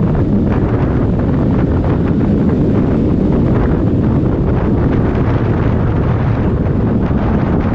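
Heavy wind buffeting on the microphone of a moving motorcycle, a steady, dense rumble that buries the engine's sound beneath it.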